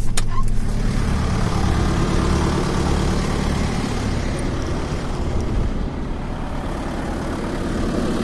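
Heavy farm machinery's engine running steadily under load, with a couple of sharp knocks right at the start.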